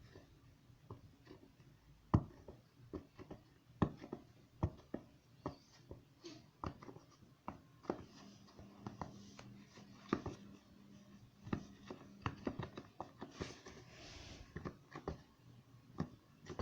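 Silicone pop-it fidget toy bubbles being pressed and popped by hand, a string of short sharp pops at an uneven pace.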